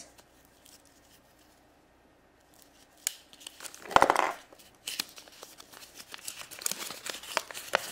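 Paper crinkling and rustling as a small rolled paper insert is unrolled and unfolded by hand, starting about three seconds in with clicks, a louder rustle about four seconds in, then steady crinkling.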